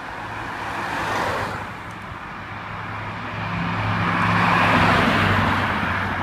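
A van drives past, then an Audi R8 passes close by on a wet road. Its engine hum and tyre hiss swell to the loudest point about five seconds in, then fade as it drives away.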